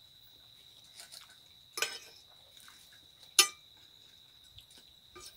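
An insect trilling steadily on one high pitch, with two sharp clinks of a metal fork against a ceramic plate, the first a little under two seconds in and the louder one about three and a half seconds in.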